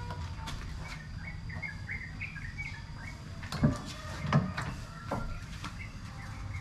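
Small birds chirping in short high notes, then two dull thumps about a second apart as the rear swing-out door of a Suzuki Escudo is unlatched and pulled open, followed by a few light clicks.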